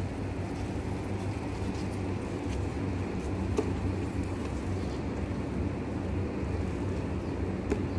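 Steady low background rumble with a faint hum, like distant traffic or machinery, with two light taps, one about three and a half seconds in and one near the end, as empty tissue boxes are set down on concrete.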